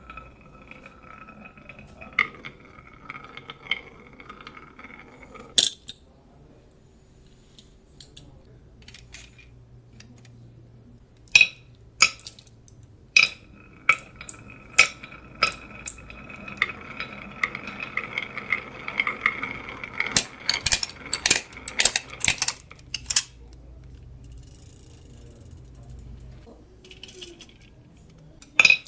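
Marbles rolling along a wooden HABA marble run, a steady ringing rolling sound, with sharp clacks as they drop and knock against the track pieces; a quick flurry of clacks comes about twenty seconds in.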